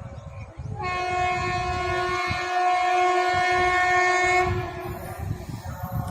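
Electric locomotive horn, a WAG-9's, sounding one long steady blast of about three and a half seconds, starting about a second in, over the low rumble and clatter of the running train.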